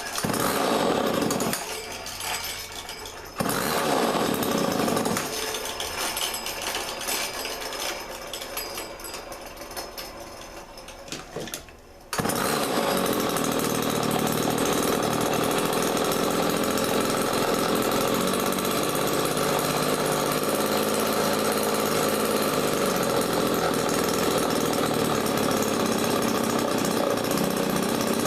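Rebuilt old Homelite two-stroke chainsaw engine running, uneven and sagging at first. About 12 seconds in it jumps suddenly to a steady, louder run.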